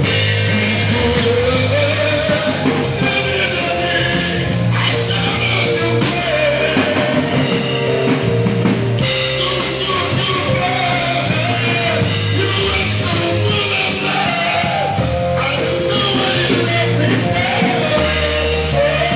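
Mass choir singing a gospel song over a live band, with steady bass notes and drums underneath.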